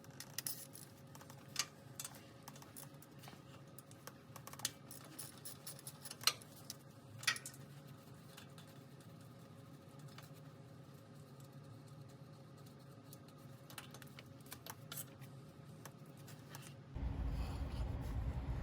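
Sparse light clicks and taps of a socket wrench working on the starter's wire terminals, over a faint steady hum. Near the end the background changes to a louder low hum.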